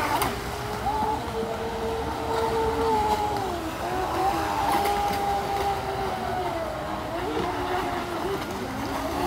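Radio-controlled speedboats running fast across a pool: a motor whine that rises and falls in pitch with the throttle, over the hiss of their spray.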